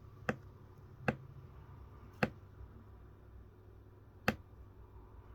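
Four sharp, isolated clicks, spaced unevenly about a second or more apart, from small objects being handled at a watch-repair bench, over a faint low steady hum.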